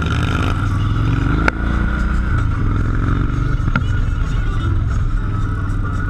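Motorcycle engines running with a steady low rumble, a steady high whine over it, and two sharp clicks, about one and a half and nearly four seconds in.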